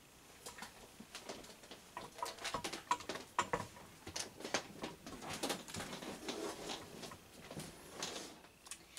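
Soft, irregular taps and scuffs of footsteps and movement across a room.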